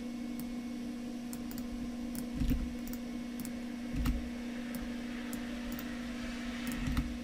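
Scattered computer keyboard taps and mouse clicks, about a dozen spread unevenly with a few duller thumps among them, over a steady low electrical hum.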